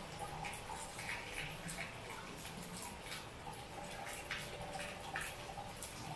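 Rain falling steadily, with close drips and splashes landing irregularly, several a second.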